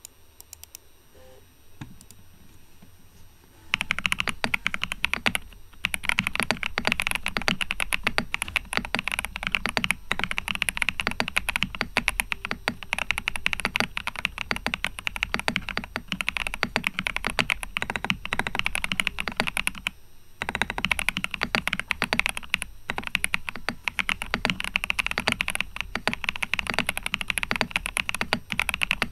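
Epomaker Shadow X mechanical keyboard with Budgerigar tactile switches being typed on, a fast, continuous stream of key clacks that starts a few seconds in and stops briefly about two-thirds of the way through.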